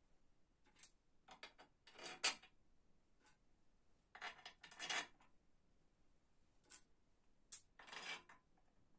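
Faint metallic clinks and short rattling handling noises, as of small metal parts or tools being picked up and set down, in three clusters about two, four and a half, and eight seconds in.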